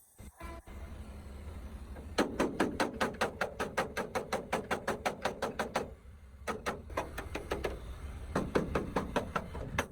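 Rapid, even knocking strikes, about seven a second, in three runs with short pauses between them, over a low steady hum.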